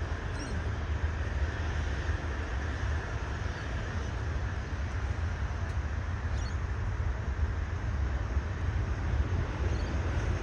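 Steady distant rumble of a Boeing 737 airliner's jet engines as it touches down and rolls out along the runway, with wind buffeting the microphone. It grows slightly louder near the end.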